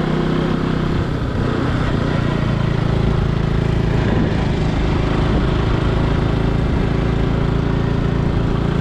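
Motorcycle engine running at a steady, even pitch, with a constant rushing hiss over it.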